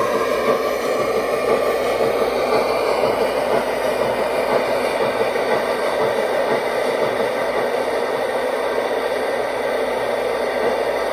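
KM1 Gauge 1 model of a DB class 01.10 steam locomotive running on its stand with its smoke unit going, giving a steady, fairly loud hissing whir without distinct chuffs.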